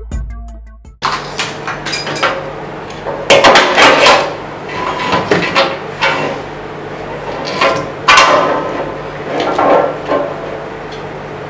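Heavy industrial sewing machine clutch motor being handled and shifted off its mount on a tiled floor: irregular metal clunks and knocks with scraping, a few of them loud, every second or two.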